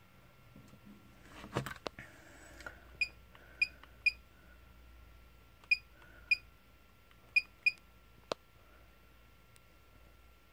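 Short, high, single-pitched electronic key beeps, seven in an uneven run, with a few soft clicks before them and one sharp click after.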